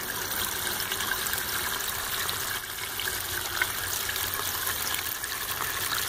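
Water pouring steadily out of a PVC pipe outlet into a pool. A small pool pump is flushing heated water out of home-built solar heater panels.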